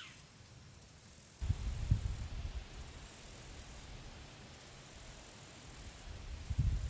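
Soft background music with a plucked guitar. Wind rumbles on the microphone from about a second and a half in.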